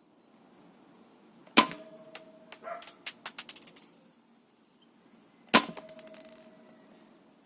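Spring-powered Snow Wolf M24 airsoft sniper rifle fired twice, about four seconds apart; each shot is a sharp crack followed by a brief ringing tone. Between the shots comes a run of clicks and rattles as the bolt is worked.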